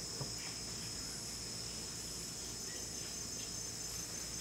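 Steady high-pitched rainforest insect chorus, crickets or cicadas, with a few faint short chirps.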